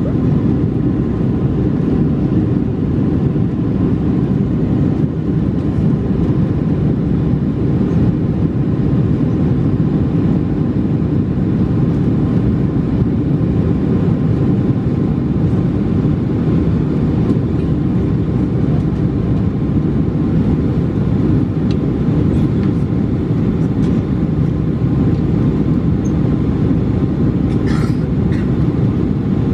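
Steady low rumble inside the cabin of a Boeing 747-436 with Rolls-Royce engines, heard from a window seat over the wing, holding even with no rise or fall in pitch. A few faint clicks near the end.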